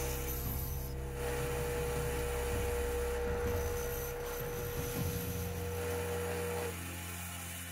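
Small benchtop band saw running steadily with a constant whine and low hum while cutting thin white plastic sheet. The whine cuts off near the end.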